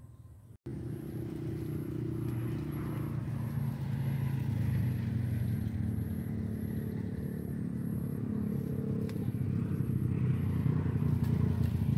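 A motor engine running steadily, starting abruptly about half a second in, with a faint high-pitched pulse repeating about one and a half times a second.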